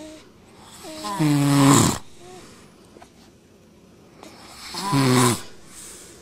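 An adult man and an infant snoring together. The man gives two loud, deep snores about three and a half seconds apart, each falling in pitch. The baby gives short, higher-pitched wheezy snores, one at the start and one just after the first big snore.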